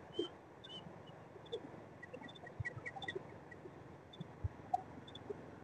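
Faint scattered short, high bird chirps with a few soft clicks, over a low steady hiss of outdoor background.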